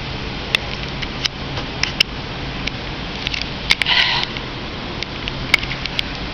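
Handling noise from a hand-held camera being picked up and moved: scattered sharp clicks and knocks over a steady hiss, with a short rustle about four seconds in.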